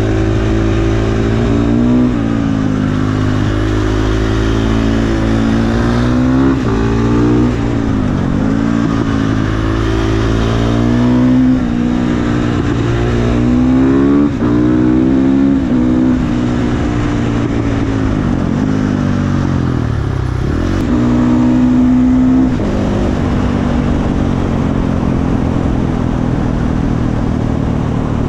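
KTM 450 supermoto's single-cylinder four-stroke engine under way, revving up and dropping back again and again as the rider rolls on and off the throttle and shifts. In the last several seconds it settles to a steady, lower running note.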